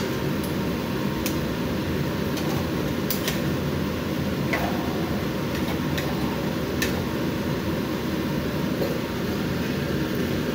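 A steady fan-like whir, with a metal spoon clicking against the frying pan half a dozen times as a thick chicken stew is stirred.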